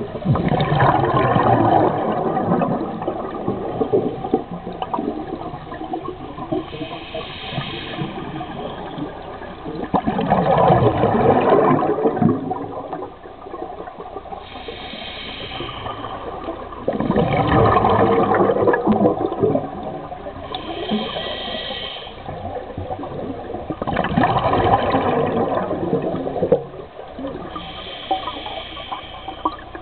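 Scuba diver breathing through a regulator underwater: a short hissing inhale, then a loud rush of exhaled bubbles, about every seven seconds.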